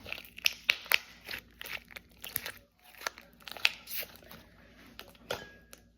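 Butter slime being squished and worked by hand, giving irregular crackles and popping clicks as air pockets burst.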